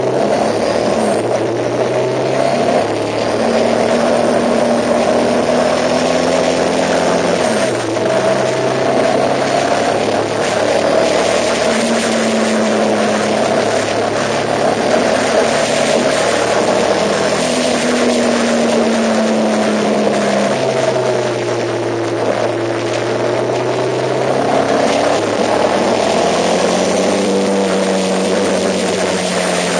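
A vehicle's engine running under way, its pitch slowly rising and falling as the speed changes, over a steady rush of wind and road noise.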